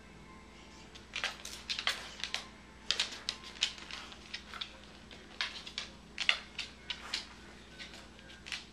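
A corgi's toenails clicking and tapping irregularly on a hardwood floor as it walks about, starting about a second in.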